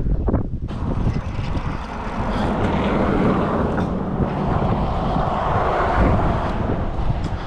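A passing vehicle: a rushing noise that swells through the middle and eases off again, over a low rumble of wind on the microphone.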